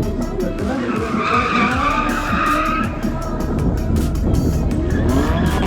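A car drifting: the engine revs up and down while the tyres squeal, the squeal loudest from about one to three seconds in.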